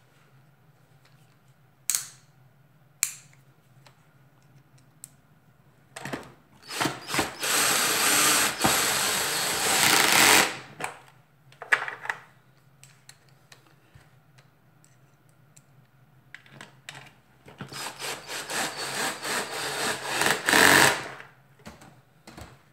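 Cordless drill-driver running in two bursts of a few seconds each, driving screws into a vacuum cleaner's plastic casing, with a couple of sharp clicks before the first burst.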